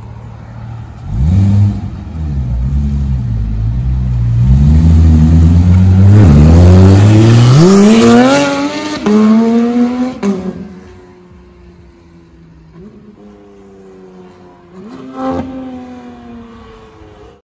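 Porsche 911 GT3 RS with a naturally aspirated flat-six and a full Innotech exhaust, revving as it pulls away and then accelerating hard, its pitch climbing steeply until an upshift about ten seconds in. The engine then fades into the distance, still climbing and shifting up.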